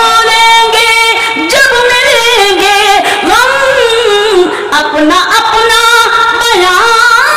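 A woman singing a ghazal couplet in tarannum, the sung style of poetry recitation, one voice drawing out long held notes that bend and glide from one pitch to the next.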